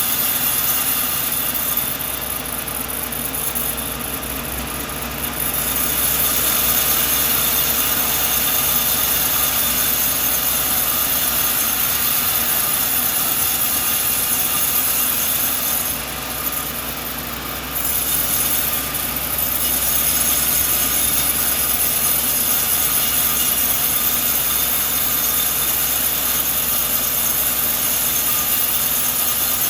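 Sawmill running steadily while its blade cuts a coconut log, with two short drops in level, about two seconds in and about sixteen seconds in.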